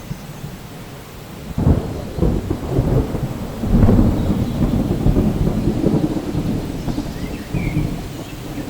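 Thunderclap in a rainstorm: a sharp crack about a second and a half in, then a long low rolling rumble that swells and slowly dies away, over steady rain.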